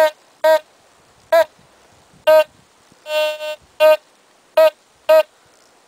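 Teknetics T2 metal detector giving about eight short beeps of one steady pitch, one held a little longer near the middle, as the coil passes over a quarter: the steady coin tone that goes with a target ID of 89–90 locked on a quarter.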